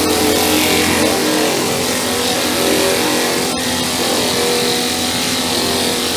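Twin-piston pneumatic flat-bed sander running steadily while sanding body filler on a panel: a loud, even hissing whir with a brief dip about three and a half seconds in.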